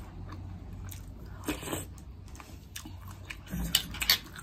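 A person eating noodles: chewing sounds, with a short noisy burst about a second and a half in and a few sharp clicks near the end, a metal spoon tapping the bowl.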